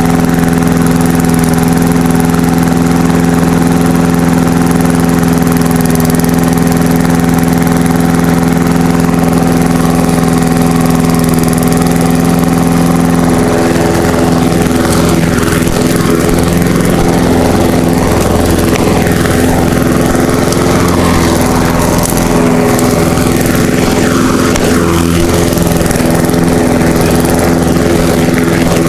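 Petrol lawn mower engine running steadily and loud, close to the microphone, with its pitch wavering a little from about halfway through.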